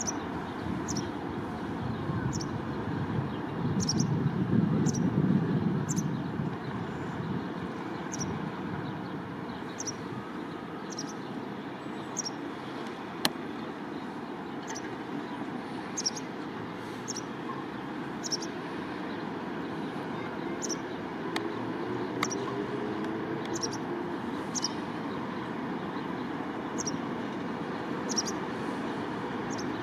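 White wagtail calling from a wire: short high chirps repeated roughly once a second, over a steady low rumble of traffic that swells about four seconds in.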